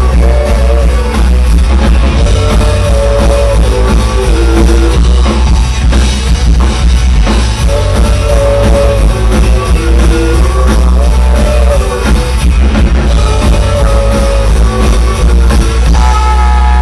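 Rock band playing live, loud: drum kit hits over electric guitar and bass, with a heavy, boomy low end.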